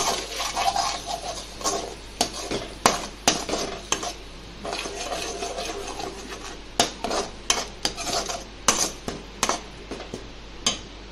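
A metal spatula scraping and clinking irregularly against an aluminium kadai as it stirs a thick ground tomato and onion paste, over a light sizzle of frying oil.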